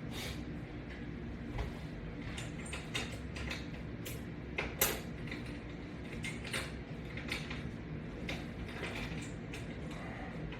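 Irregular clicks, knocks and creaks of a resistance strap and its hooks being handled and fastened, with one sharper clack about five seconds in, over a steady low hum.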